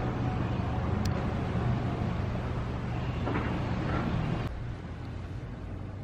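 Steady low rumble of wind and surf at the shore. About four and a half seconds in it cuts to a quieter outdoor background.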